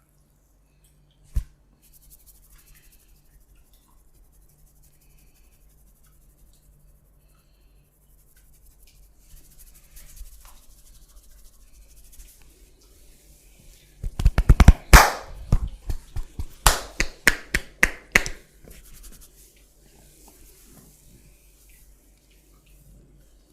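A barber's hands working over a client in a massage, giving a single sharp click early and then a quick, dense run of sharp slaps and cracks for about four seconds in the middle.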